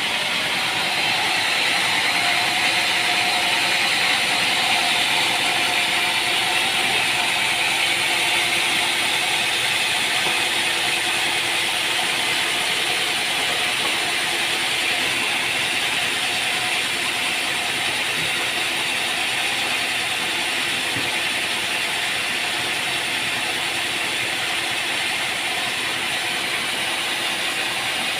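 Sawmill machinery running steadily: a continuous mechanical hiss and hum with no breaks.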